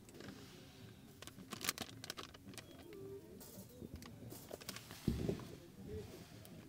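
Plastic food packaging crinkling and crackling as packets are handled and peeled open, with a dull thump about five seconds in.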